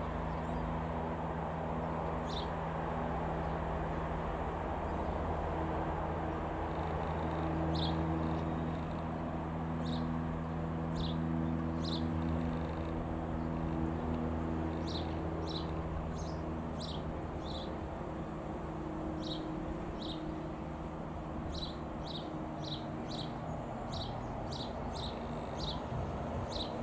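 Steady low engine drone with short, high bird chirps repeating over it, coming more often in the second half.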